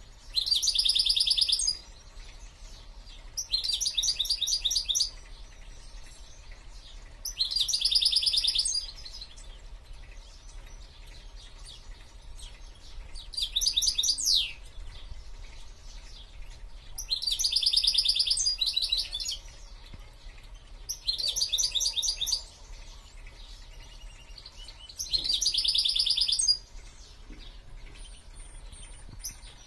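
Caged songbird singing seven loud, trilled song phrases, each about a second and a half long and a few seconds apart. One phrase in the middle ends in a falling sweep.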